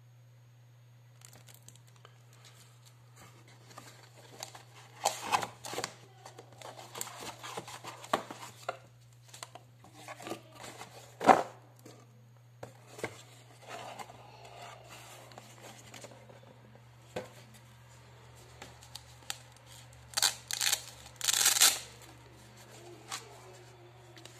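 Unboxing handling noise: plastic packaging crinkling and rustling while a cardboard box and its contents are moved about, in irregular bursts. A sharp knock comes about halfway through, and a cluster of louder crinkles near the end.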